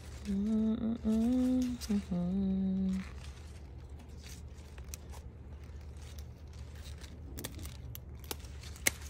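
A woman humming three held notes, then faint scattered ticks and one sharp click near the end.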